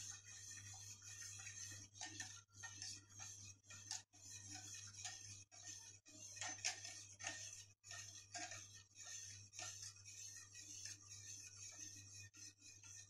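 Wire whisk stirring a milk pudding mixture in a stainless steel pot, making faint irregular scrapes and light clinks against the metal, over a low steady hum.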